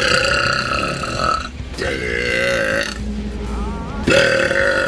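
A woman's long, loud burps, three in a row: one already going at the start, a second at about two seconds in, and a third starting near the end.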